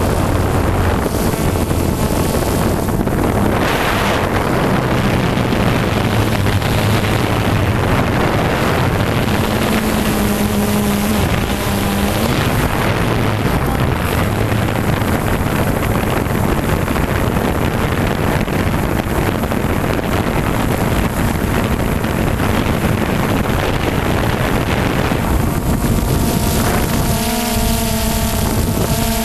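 Drone's motors and propellers running steadily, heard through the camera it carries, with wind rushing over the microphone; a few steady hum tones stand out near the end.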